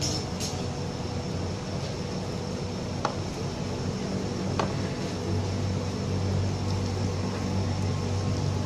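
Steady mechanical hum, as of a fan or blower motor, with a couple of faint clicks.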